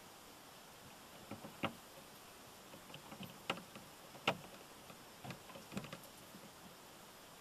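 A scatter of sharp clicks and knocks, the loudest about halfway through, from a windshield wiper blade being fitted onto its wiper arm and knocking against the windshield glass. They are heard through the windshield from inside the car.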